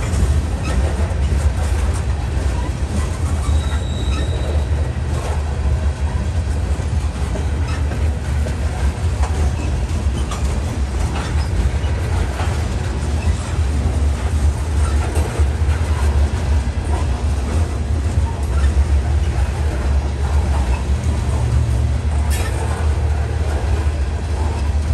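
Freight train cars of a CSX grain train rolling past with a steady heavy rumble and scattered wheel clicks over the rails. A brief thin squeal comes about four seconds in, and a sharp click near the end.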